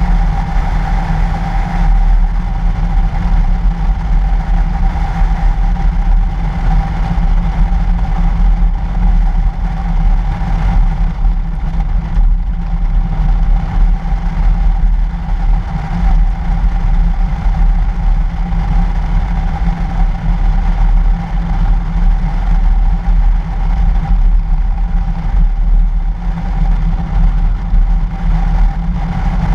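A 2013 Toyota FJ Cruiser driving steadily on a snow-covered road, heard through a camera mounted on the outside of the vehicle: a heavy, even low rumble of engine, tyres and wind with a steady hum on top.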